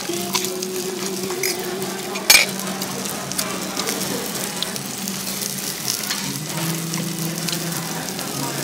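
Food sizzling and crackling in hot oil, with scattered clicks and one sharp clink of a utensil about two seconds in.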